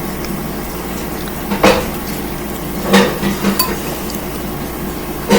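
Metal spoon clinking against a soup bowl a few times, with a clink about two seconds in and two more around three seconds in, over a steady background hiss.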